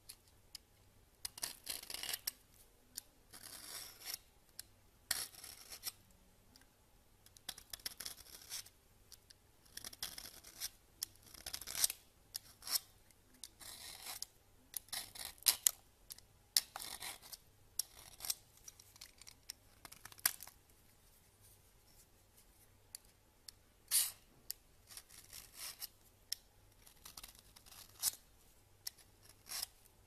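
Y-shaped vegetable peeler shaving curls off a hard bar of soap: a run of short, mostly high-pitched scraping strokes at an uneven pace, with a quieter pause a little past the middle.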